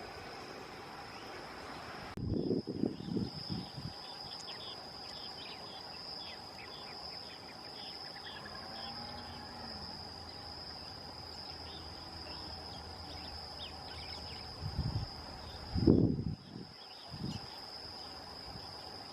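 Steady high-pitched insect drone, with a run of short chirps repeated about twice a second for several seconds. A few loud low thumps come about two seconds in and again near the end.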